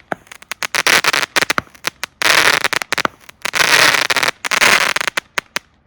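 Consumer firework cakes firing: sharp shot reports with four or five dense crackling bursts in quick succession, stopping shortly before the end.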